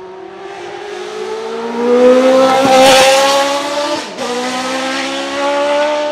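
Leyton House March Formula One car's naturally aspirated 3.5-litre Judd V8 accelerating hard past the microphone, its note climbing steadily and loudest as it goes by, two to three seconds in. About four seconds in, an upshift drops the pitch, and the note climbs again as the car pulls away, with another upshift right at the end.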